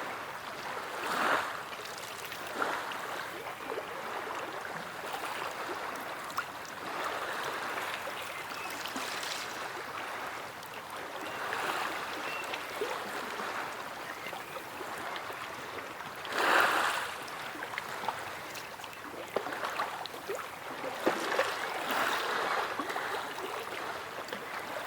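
Sea water washing and splashing in a steady wash, with small splashes and irregular louder surges, the loudest about sixteen seconds in.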